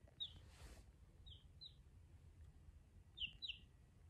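A young chick peeping: five short, falling peeps, one near the start, two about a second and a half in and two louder ones about three seconds in. A brief soft rustle comes about half a second in.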